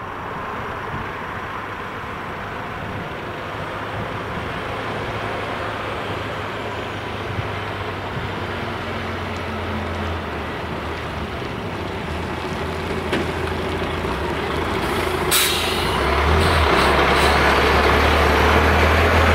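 Classic electromechanical level-crossing bell ringing continuously while the crossing's warning lights flash. A lorry's diesel engine grows louder as it approaches and comes close near the end, with a short air-brake hiss about fifteen seconds in.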